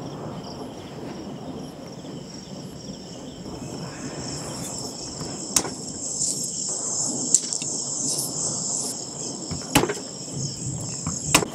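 Crickets chirping in a steady, high, continuous trill, with four sharp knocks or clicks scattered through its second half.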